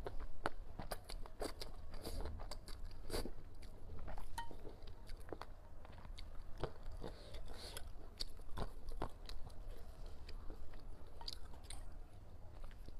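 A person slurping and chewing spicy noodles, with many quick mouth clicks and smacks throughout.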